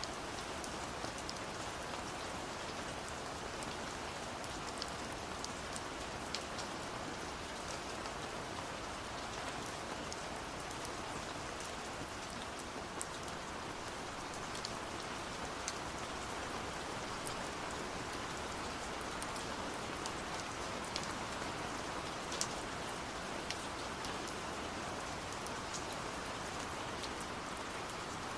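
Gentle, steady rain falling, with scattered individual drops ticking sharply over the even hiss.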